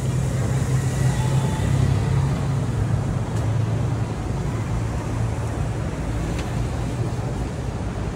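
Motorcade vehicles passing slowly along the street, a police motorcycle and then SUVs, their engines and tyres making a steady low hum.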